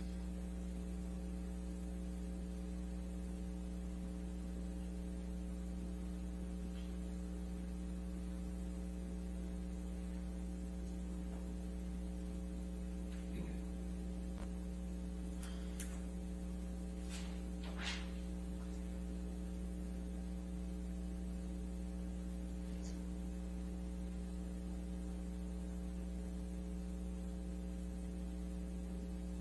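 Steady electrical mains hum with a stack of overtones, unbroken throughout, with a few faint ticks around the middle.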